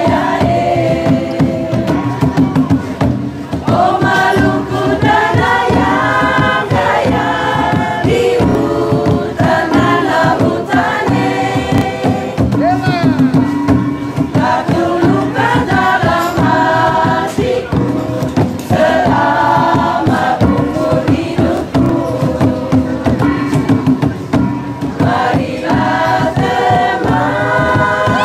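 Group of women singing a dance song from the Kei Islands in chorus, in long sung phrases over a steady beat of tifa drums.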